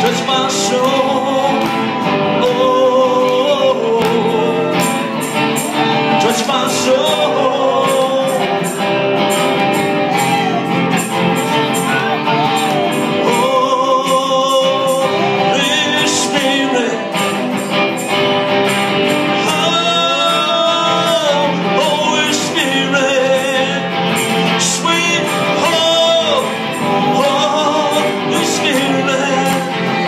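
A song: a singing voice with instrumental accompaniment.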